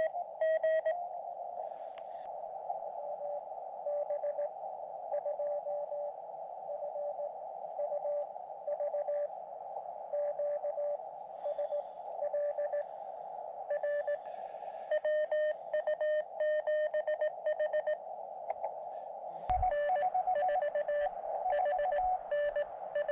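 Morse code (CW) from a ham radio transceiver: a single tone keyed in dots and dashes over the hiss of the receiver's narrow CW filter. The keying is fainter at first and louder and sharper from about 15 seconds in, with a brief thump just before the 20-second mark.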